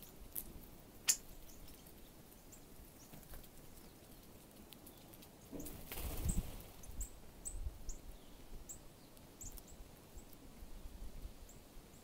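Small songbirds at a seed-covered ledge: a couple of sharp clicks near the start, a brief rush of wing flaps about six seconds in as the birds flush off, then a series of short high chirps.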